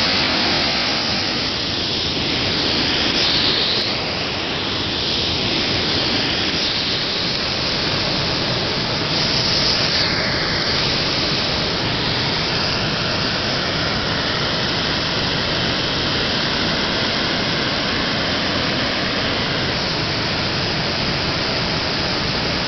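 Fast, turbulent water rushing over rocks and pouring over a weir: a loud, steady rushing noise.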